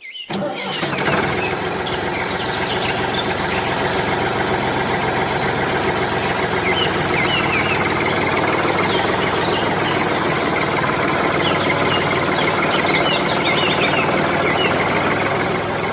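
Diesel tractor engine running steadily with a fast, even knock.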